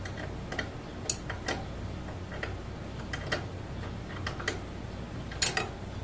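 Irregular small metallic clicks and clinks as the mounting nuts and bolts at the base of a mini-fridge compressor are handled and fitted by hand, with a brief louder cluster near the end.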